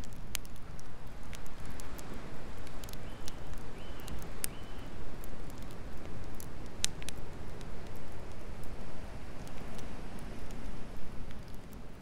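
Wood campfire crackling, with irregular sharp pops and snaps from the burning logs, over a steady low rushing noise.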